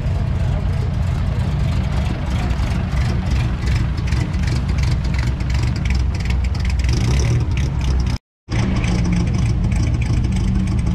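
Several classic car engines idling and moving off across a gravel car park. The sound cuts out completely for a moment about eight seconds in.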